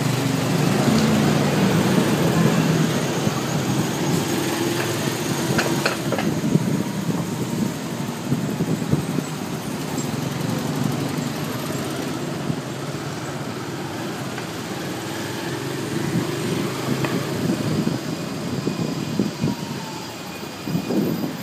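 Small motorcycle engine running at low speed, its pitch rising and falling, with street traffic noise around it.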